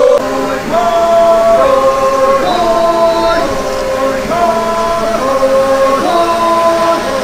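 Angami Naga troupe's men singing a traditional chant in several parts: long held notes sung together that step to a new pitch about once a second.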